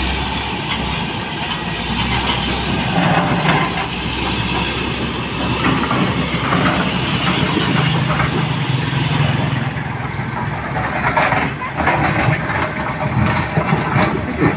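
Heavy diesel construction machinery running steadily at a road works site.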